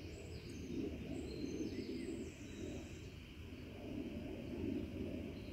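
Small songbirds chirping and twittering, a scatter of short high calls, over a steady low rumbling noise.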